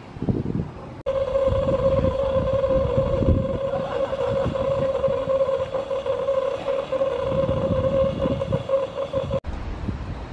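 A one-third-scale steam locomotive standing on a turntable gives off a steady, held high tone over low rumbling and clatter. The sound starts abruptly about a second in and cuts off just before the end.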